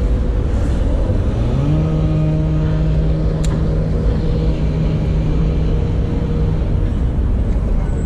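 A steady low rumble with an engine hum over it. The hum rises in pitch about a second and a half in, holds steady, and stops near the end.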